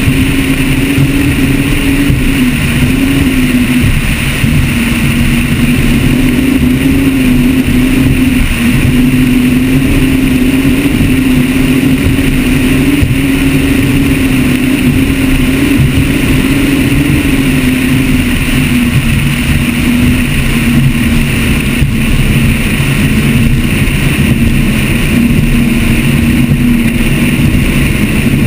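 Mercury Marine engines of a Motion 43GT catamaran running steadily under way, a loud drone whose pitch wavers slightly up and down, with rough rumble from wind and water on the bow-mounted microphone.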